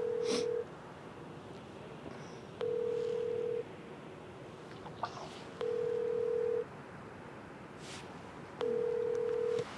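Telephone ringback tone heard through a phone's speaker: a steady single-pitched beep about a second long, repeating every three seconds while a call rings through.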